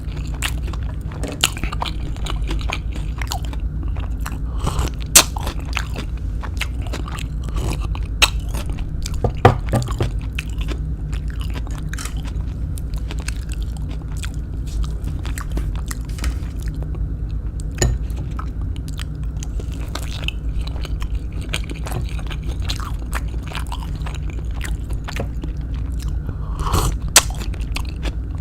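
Close-up chewing and biting of kwek kwek, deep-fried battered quail eggs: irregular crisp crunches, a few of them much louder, over a steady low hum.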